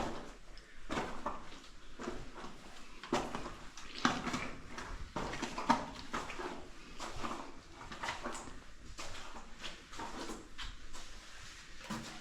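Footsteps scuffing and crunching irregularly over sand and fallen rock in a low mine tunnel.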